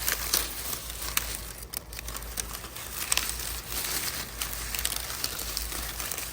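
Dry corn husks crinkling and crackling as they are peeled back from a dried ear of glass gem corn by hand, in irregular snaps and rustles.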